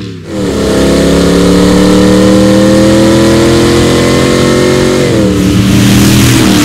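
RAM 1500's 5.7L HEMI V8 through a Borla S-Type cat-back exhaust, accelerating hard. The exhaust note cuts in abruptly, climbs steadily in pitch, then drops twice near the end at the upshifts.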